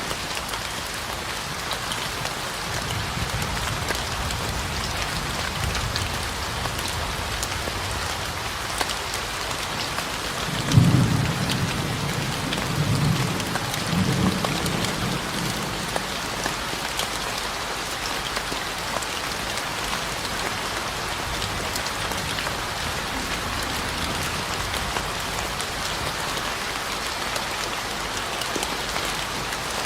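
Steady rain falling on surfaces, with low rolls of thunder: a faint rumble early on and a louder peal about eleven seconds in, rolling on for a few seconds.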